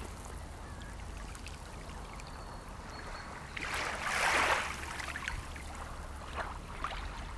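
Small sea waves washing on the shore: one wave rushes in and falls away about four seconds in, followed by two lighter splashes near the end, over a low steady rumble.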